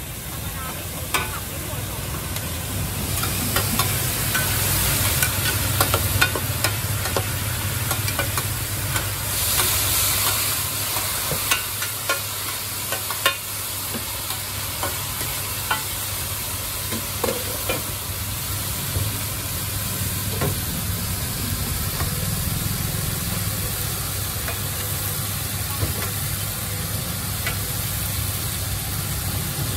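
Pad thai noodles sizzling in oil on a large flat round pan, with metal spatulas clicking and scraping against the pan as they stir and toss. The sizzling flares up louder a few seconds in and again around ten seconds.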